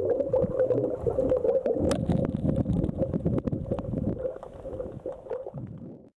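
Underwater sound picked up by a waterproof compact camera while snorkeling: a dense crackle of short clicks over a low water rumble, with a steady hum at a middle pitch. It cuts off abruptly near the end.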